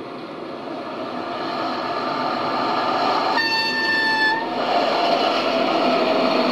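DB class 515 battery-electric railcar running with its motor and wheel noise, growing louder as it gathers speed. About halfway through, a train horn sounds once for about a second.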